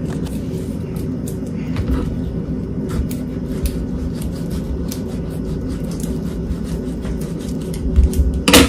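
A kitchen knife cutting around an avocado on a wooden cutting board, with faint clicks and taps over a steady low hum. A few louder knocks come near the end.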